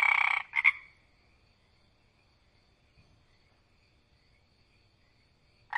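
A frog calling: a loud croak at the start and a shorter one just after it, then a faint, steady, high trill in the background. A sheep's bleat begins at the very end.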